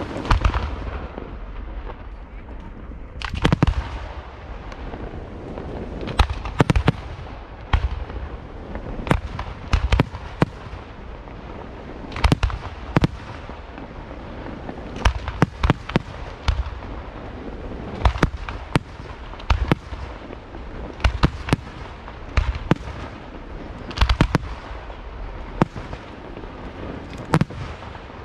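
Aerial firework shells bursting one after another in a display: sharp bangs about once a second, some in quick pairs and clusters, over a continuous low rumble and crackle.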